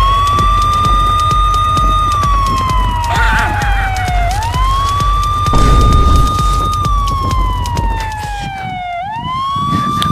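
Police siren wailing: each cycle rises quickly, holds high, then slides slowly down, repeating about every four and a half seconds. A steady low beat runs underneath.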